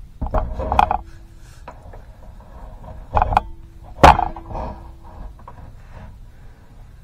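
Steel wind wire being wound into the retaining groove of a hydraulic cylinder's head gland, with metal scraping and clinking in three bursts as the head end is turned with a bar. The loudest is a sharp clank about four seconds in, followed by a short metallic ring.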